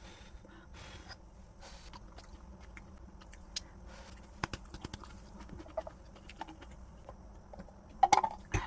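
A person eating, chewing with small scattered clicks of utensils, and a couple of louder clacks near the end.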